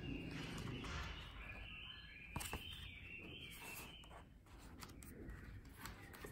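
Paper pages and card cover of a small stitch-bound Hahnemühle Sketch & Note notebook rustling softly as they are opened and turned by hand, with a sharp click about two and a half seconds in and light taps near the end.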